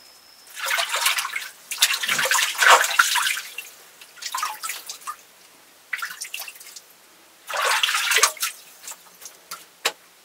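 Water splashing in about five separate bursts, followed by a few short sharp clicks near the end.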